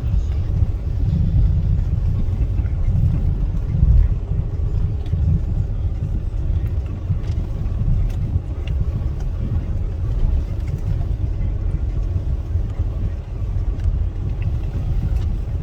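Steady low rumble of a car being driven, engine and tyre noise heard from inside the cabin, with a louder bump about four seconds in.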